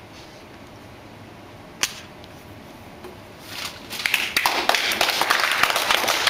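Quiet room tone broken by a single sharp click, then a group of people breaks into applause about four seconds in, dense irregular clapping that carries on.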